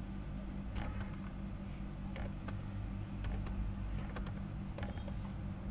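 Computer keyboard typing: irregular, scattered key clicks over a steady low hum.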